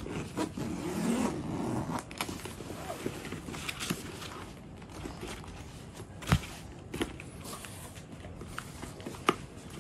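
Zipper of a soft shoulder bag being pulled open, with scraping and rustling as hands work the bag's lid open. Two sharp clicks stand out, one past the middle and one near the end.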